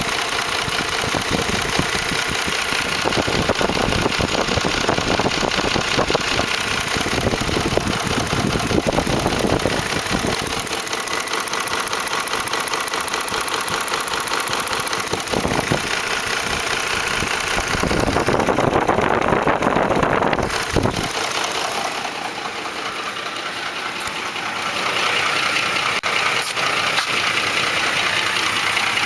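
2004 Ford F-150's 5.4L three-valve V8 idling with a rapid slapping, tapping knock from the front of the engine: the timing chains slapping against the block because the chain tensioners have failed, along with worn cam phasers. The deep rumble drops away about three-quarters of the way through while the ticking carries on.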